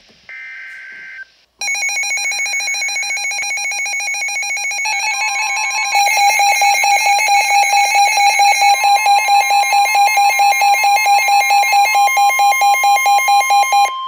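The last burst of a NOAA Weather Radio digital alert header gives a raspy data tone. About a second and a half in, Midland weather alert radios go off with a loud, rapidly pulsing alert tone, which grows louder around six seconds in. Under it the broadcast's long steady warning tone sounds, signalling a severe thunderstorm warning.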